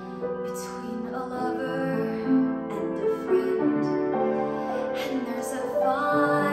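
A young woman singing a show tune over a piano accompaniment.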